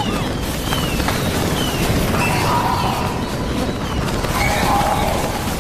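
Dense action-film sound effects: a steady loud din of crashing noise, with a few short falling whistles in the first second.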